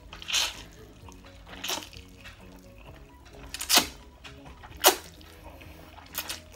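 A person slurping fried noodles: a series of short, loud, sucking slurps as a long mouthful is drawn in. Soft background music with steady low notes plays underneath.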